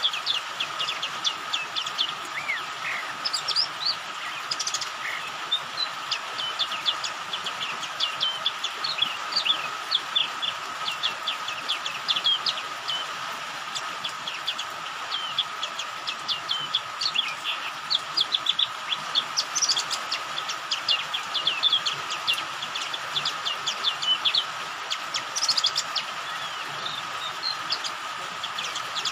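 White-eye (pleci) chirping and twittering: a dense stream of very short, high chirps in quick runs, used as a lure call to get other pleci singing. Underneath lie a steady hum and the even hiss of rain.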